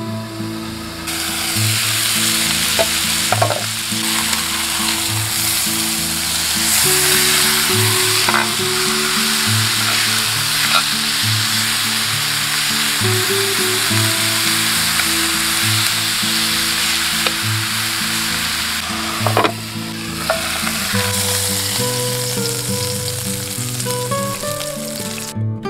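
Beef steak sizzling as it sears in a hot pan, a dense steady hiss with a few sharp clicks of metal tongs against the pan. The sizzle cuts off just before the end, as guitar music comes in.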